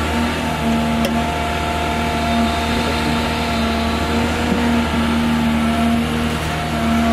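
Caterpillar 320 hydraulic excavator's diesel engine running steadily under working load while the machine swings and dumps a bucket of soil into a dump truck.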